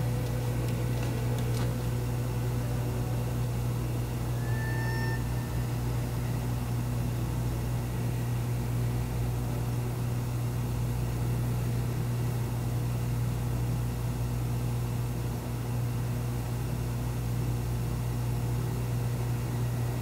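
A steady low hum, with a single soft held note of background music about five seconds in.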